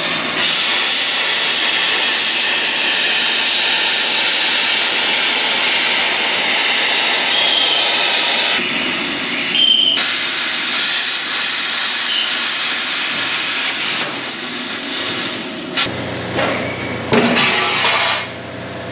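Plasma cutter hissing steadily as it cuts through the sheet-steel firewall of a truck cab, breaking off briefly twice around nine to ten seconds in. After about sixteen seconds the hiss drops away under a lower steady hum and a few sharp knocks.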